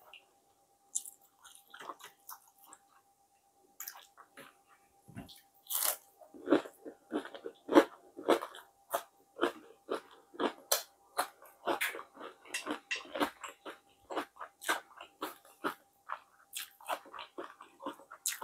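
Close-miked chewing and crunching of crisp fried food, sparse at first, then dense irregular crunches from about six seconds in.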